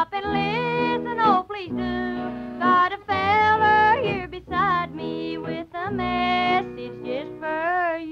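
Women's voices singing a country song in harmony, with vibrato on the held notes, over acoustic guitar accompaniment.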